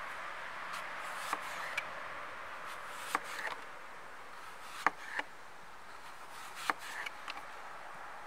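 Kitchen knife slicing an apple into thin slices on a wooden cutting board: a sharp tap each time the blade reaches the board, at uneven intervals of about a second, over a faint steady hiss.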